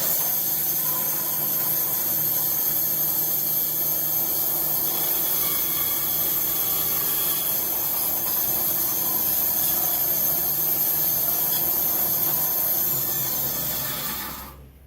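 Bench bandsaw with an old, skinny blade cutting through a piece of wood in one steady run, stopping about fourteen seconds in. The blade is running slack: the owner judges that it needs tightening up.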